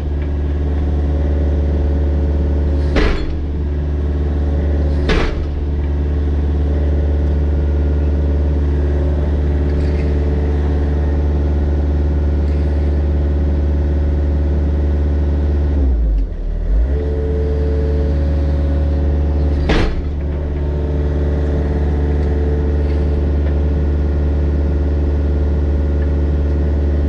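Mini excavator's diesel engine running steadily while it works. Three sharp knocks are heard over it, and the engine sound dips briefly a little past the middle.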